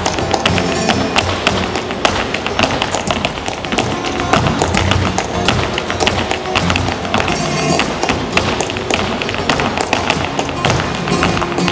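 Flamenco footwork: the dancers' shoes striking the stage floor in fast, uneven runs of sharp taps, over flamenco music.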